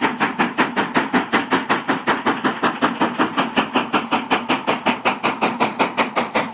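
Steam locomotive running at speed, its exhaust chuffing in a rapid, even beat of about five chuffs a second.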